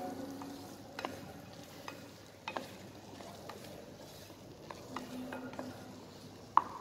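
A wooden spatula stirring a thick vegetable and kidney-bean mixture in a small nonstick saucepan. It scrapes softly, with a few light knocks against the pan, the loudest near the end, over a faint sizzle from the pan.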